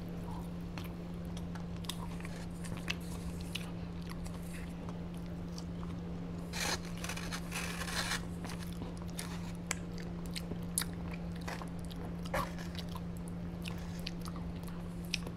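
Close-up eating sounds: biting and chewing French fries, with scattered soft crunches and small clicks from handling a plastic sauce cup and foam takeout box, and a longer rustling crunch about seven seconds in. A steady low hum runs underneath.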